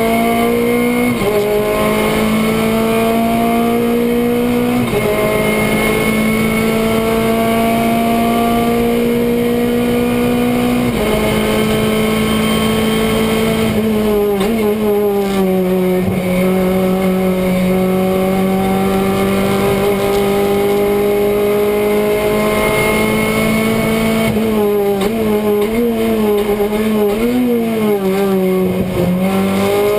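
Renault Clio Cup race car engine heard from inside the cockpit, running hard under racing load. Its pitch climbs slowly and drops sharply three times in the first eleven seconds as it shifts up through the gears. It falls away around the middle as the car brakes and shifts down, climbs steadily again on a long pull, and near the end the revs rise and fall quickly through the corners.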